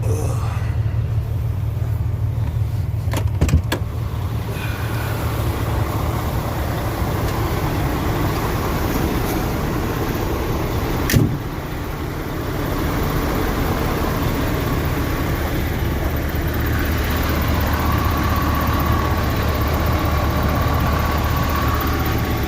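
Heavy truck's diesel engine idling steadily. A couple of sharp knocks come about three seconds in, and one loud knock about eleven seconds in.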